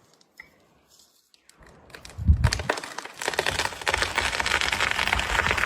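Wood cracking and splintering: a heavy thud about two seconds in, then a dense, loud crackle of many snapping branches and fibres.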